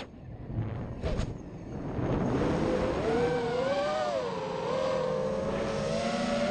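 Racing FPV mini quad's four T-Motor F60 Pro 2500kv brushless motors spinning 5-inch props, with the whine and rush of air picked up by the onboard camera. The sound is low for the first couple of seconds, then becomes a loud whine whose pitch rises and falls with the throttle and climbs near the end.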